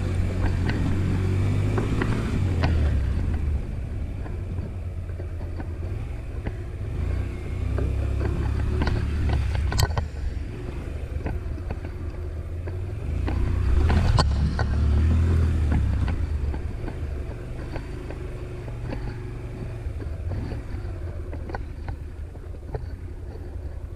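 A Honda Varadero 125's small V-twin engine running off-road, its low note rising and falling with the throttle and getting louder for a few seconds past the middle, with a couple of sharp knocks.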